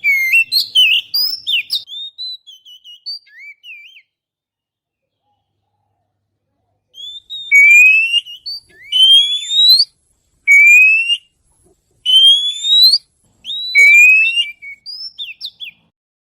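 Oriental magpie-robin (kacer) song played as a bird-luring call. It opens with a quick run of varied chirps and whistles. After a silent gap come about five loud rising whistled notes, each under a second, interspersed with short chirps.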